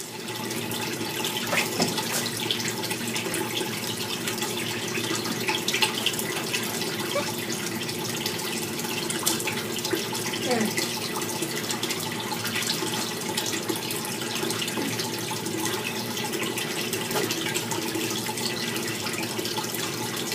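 Steady rushing background noise with a few faint clicks and knocks.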